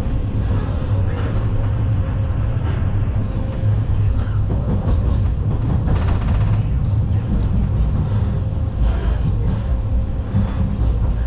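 Inside a moving Vityaz-M low-floor tram: a steady low rumble of the running gear and wheels on the rails, with a few brief louder rattles about six seconds in and again near nine seconds.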